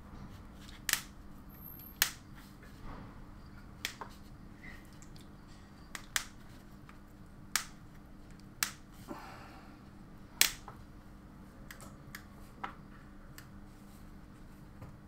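Irregular sharp clicks and light knocks, about eight loud ones, with a brief rustle in between, as a gloved hand handles a bundle of 12 AWG red and black cable on a wooden bench. A steady low hum runs underneath.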